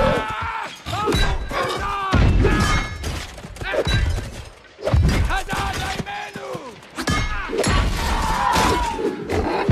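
Fantasy-film battle sound effects: several heavy thuds and crashes of blows landing, with the short shouting and snarling cries of fighters between them.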